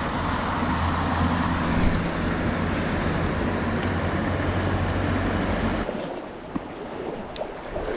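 Steady rush of creek water with low wind rumble on the microphone, which drops away abruptly about six seconds in, leaving a quieter stream with a few faint clicks.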